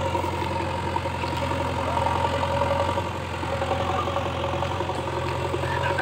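JCB backhoe loader's diesel engine running steadily at an even speed, with a steady higher tone over the low engine note.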